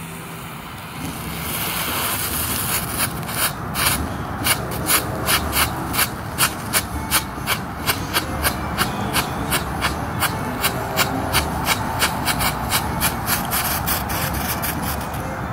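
Shogun 'Disco Flash' ground fountain firework: a sparking fuse, then the fountain catching about a second in with a steady hiss. It soon adds regular sharp strobe pops, about three a second.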